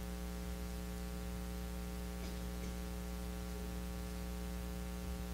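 Steady electrical mains hum with faint hiss, a constant buzz of many even overtones.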